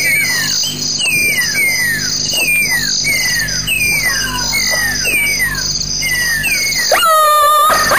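Calls attributed to a black-backed jackal: a run of short, high yelps, each falling in pitch, a little under two a second and often in pairs, then a louder, wavering cry near the end.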